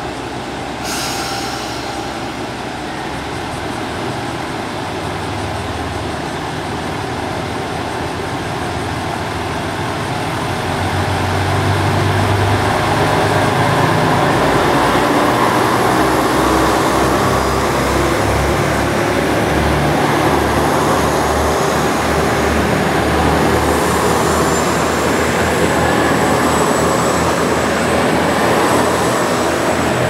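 JR Shikoku 2000-series diesel-hydraulic train pulling out: its underfloor diesel engines throttle up and the rumble grows louder about ten seconds in as the cars accelerate past. A short hiss sounds about a second in, and a thin high whine comes in near the end.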